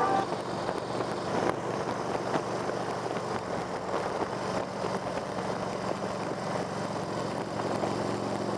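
Steady vehicle noise: a continuous rumble with a low, even hum under it.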